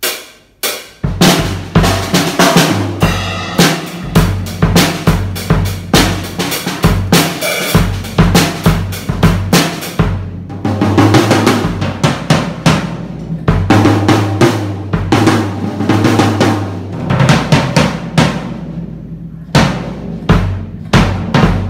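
Early Taiwanese-made Lazer drum kit (22-inch bass drum, 14-inch snare, toms, hi-hat and crash cymbals) played with sticks: two single hits, then continuous beats with bass drum, snare and cymbals from about a second in.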